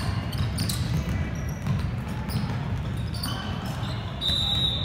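Basketball bouncing on a gym floor during play, a few irregular thuds over a steady low crowd-and-hall rumble. A short high-pitched tone sounds near the end.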